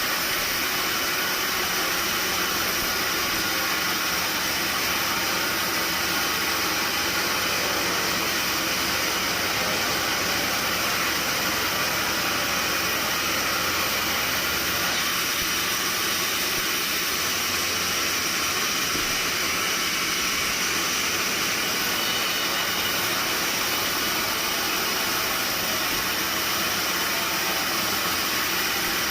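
Steady, unbroken sawmill machinery noise, an even hiss with no separate cuts or knocks standing out.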